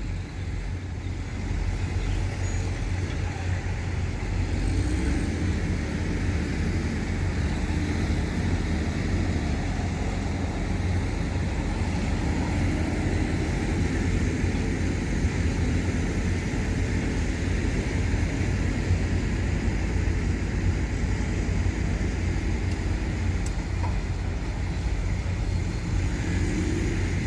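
Steady low engine rumble of a running vehicle or machine, holding one even speed throughout.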